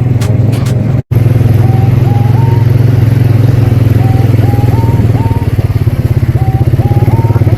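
ATV engine running steadily at a constant speed with a dense, even firing pulse. The sound cuts out completely for an instant about a second in.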